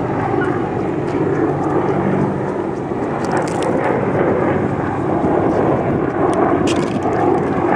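Helicopter flying overhead, its rotor and engine noise loud and steady.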